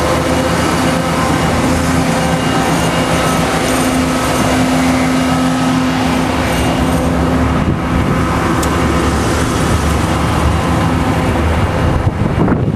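Road traffic on a highway: cars and a heavy truck passing, with the steady hum of a large engine that fades out about eight seconds in.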